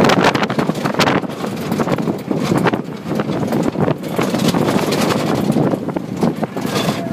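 Open off-road vehicle driving fast over a bumpy dirt track: engine and tyre noise with frequent knocks and rattles from the jolts, and wind buffeting the microphone.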